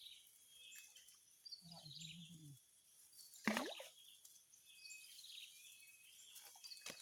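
Outdoor ambience of birds chirping in the background, with one loud, sudden sound about halfway through.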